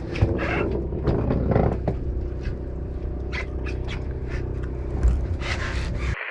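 Steady low hum of the charter boat's engine, with scattered clicks and knocks from handling on deck.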